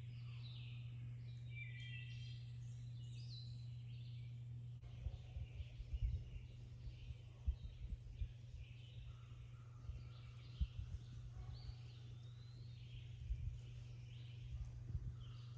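Several birds chirping and singing, with short repeated calls and warbles over a steady low hum. About five seconds in, irregular low thumps begin underneath the birdsong.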